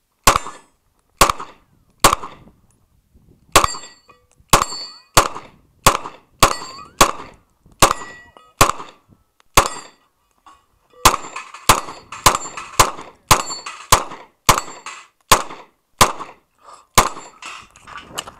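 Rapid pistol fire, about two dozen shots, with steel plate targets clanging and ringing after many of the hits. There is a gap of about a second a little past the middle, then the shots come faster.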